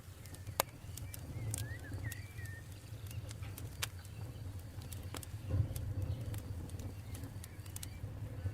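Campfire burning: irregular sharp crackles and pops over a steady low rumble of the flames. A bird gives a short twittering call between about one and two and a half seconds in.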